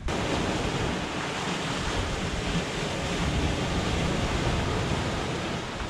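Sea surf breaking and washing over shore rocks: a steady, even rush of water.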